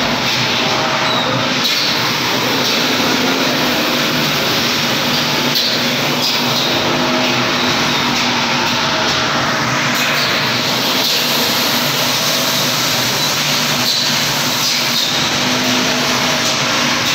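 Peanut air blancher line running: a steady, loud machine din with a rushing hiss and a few constant hums.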